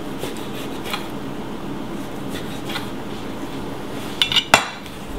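Chef's knife cutting pancetta on an end-grain wooden cutting board: a few light taps of the blade, then near the end a louder scrape and a sharp knock as the blade sweeps across the board.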